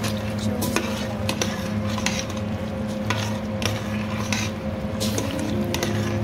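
A spoon stirring beef goulash in a steel pot, knocking and scraping against the pot at irregular moments about once or twice a second, over a steady low hum.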